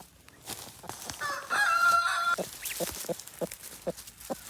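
Chickens calling. About a second in comes a loud, drawn-out call lasting about a second, followed by a run of short clucks about three a second.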